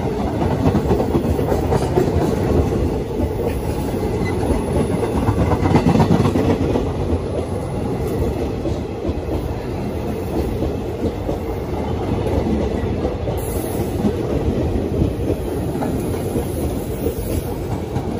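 Train running along the rails, its wheels clicking over the rail joints in a steady clickety-clack.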